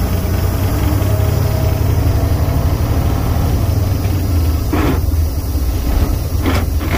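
Semi truck's diesel engine running at low revs, heard from inside the cab, as the truck pulls away slowly in first gear with the clutch just let out. Two brief bursts of noise come near the end.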